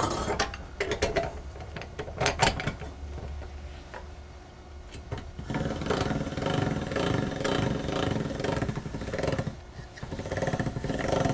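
Hand-cranked pasta machine with a spaghetti cutter attachment being turned to feed a dough sheet through. Its gears give a fast, steady clicking rattle from about halfway in, after a few scattered knocks.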